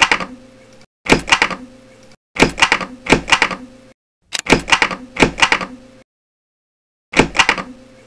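Rapid mechanical clicking sound effect in five short bursts, each about a second long and separated by dead silence, laid over the intro title cards.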